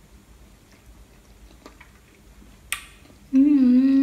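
Faint chewing and small mouth clicks from a mouthful of raw salmon, then about three seconds in a loud, steady "mmm" hum of enjoyment from a woman with her mouth full, rising slightly in pitch.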